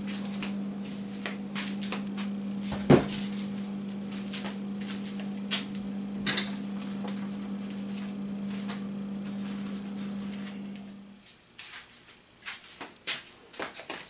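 Knocks and clicks of objects being handled and moved about, the loudest a sharp knock about three seconds in, over a steady low hum that cuts off about eleven seconds in.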